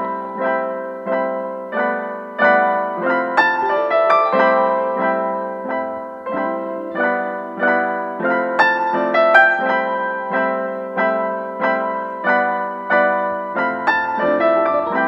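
Background piano music: a gentle piece of evenly struck notes, about two a second, each ringing away. A low held note comes in near the end.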